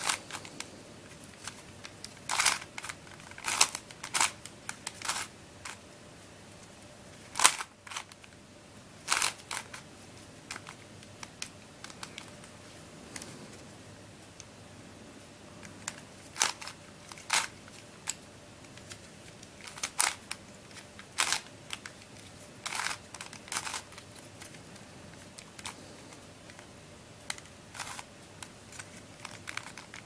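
Dayan Bermuda Star, a plastic shape-shifting 3x3 puzzle cube, being turned by hand: sharp clicks and clacks of its layers turning and snapping into place. They come at uneven intervals, singly or in quick clusters, with short pauses between.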